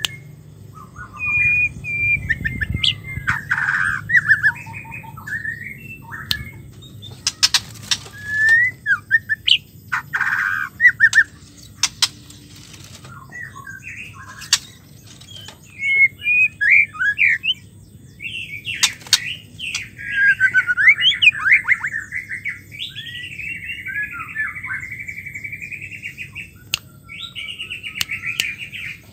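White-rumped shama singing: short, varied phrases of clear whistles and rapid chattering notes with pauses between them, and a few sharp clicks.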